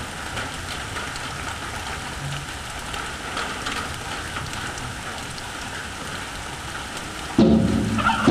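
Steady hiss and hum of turned-up electric guitar amplifiers idling between chords. About seven seconds in, a loud electric guitar chord is struck and rings on.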